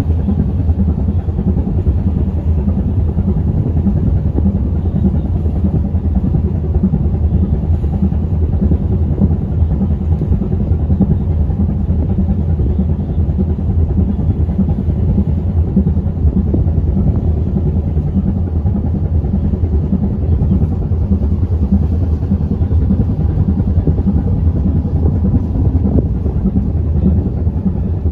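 A ferry's engines running steadily under way: a loud, unbroken low drone.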